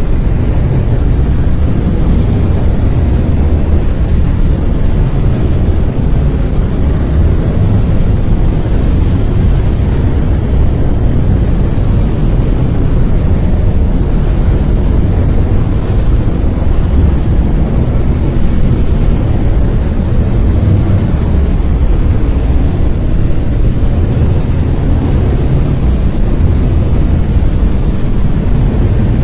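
Brown noise: a steady, loud, deep rumbling hiss with most of its energy in the low end, unchanging throughout.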